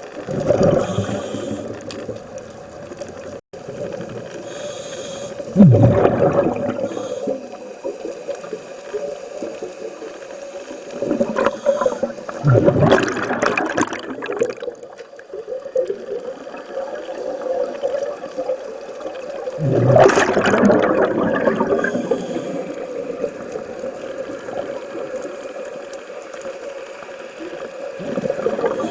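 Scuba regulator heard underwater: a diver's exhalations bubble out in bursts of a second or two, several seconds apart, over a steady hum.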